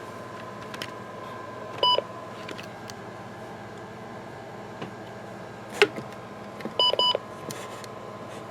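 Short electronic key beeps from a weather radio receiver being operated: one beep about two seconds in and a quick run of beeps near seven seconds. A sharp click comes just before six seconds, over a faint steady electronic hum.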